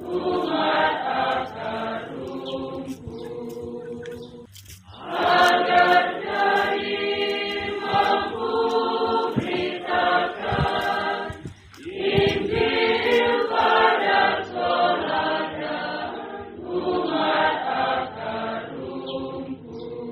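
A group of voices singing together, unaccompanied, in long held phrases, with short breaks about four and a half and eleven and a half seconds in.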